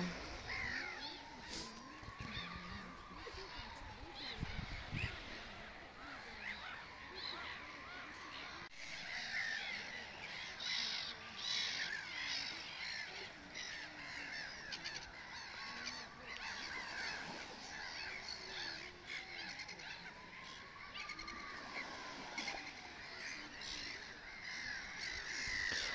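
Small birds chirping and singing, many short calls overlapping. Under them a fainter drawn-out tone slowly rises and falls several times.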